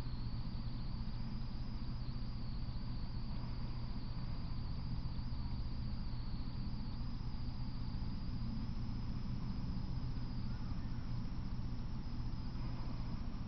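Steady background hum and hiss with a thin high-pitched whine that drifts slowly upward in pitch; nothing starts or stops.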